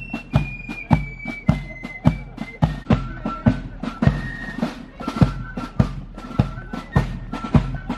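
Marching-band music: drums beating a steady march, just under two strikes a second, under a high piped melody of held notes stepping from pitch to pitch.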